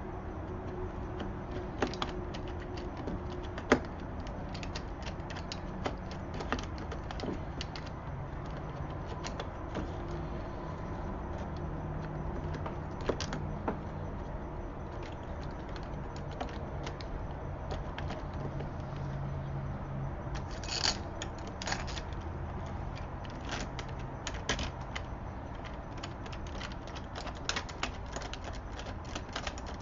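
Scattered small clicks and light metallic rattling of deadbolt lock hardware being handled, over a steady low hum.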